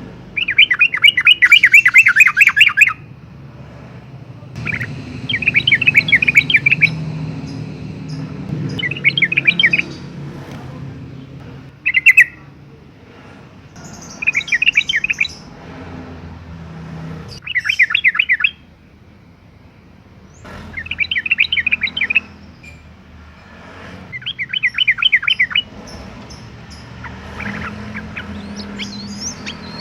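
Yellow-vented bulbul (trucukan) singing energetically in repeated bursts of fast chattering notes. Each burst lasts one to three seconds, with short pauses between them.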